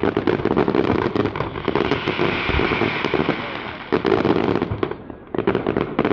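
Fireworks display: rapid crackling and popping from aerial shells, with louder clusters of bursts about four seconds in and again near the end.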